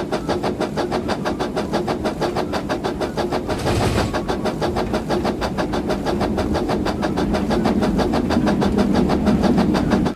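Battery-powered Thomas the Train toy running, its motor and wheels making a fast, even, rhythmic clatter that cuts off suddenly at the end as it is switched off.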